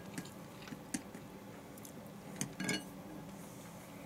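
Wooden chopsticks clicking and scraping against a ceramic rice bowl while eating, with a few sharp clinks, the loudest cluster about two and a half seconds in.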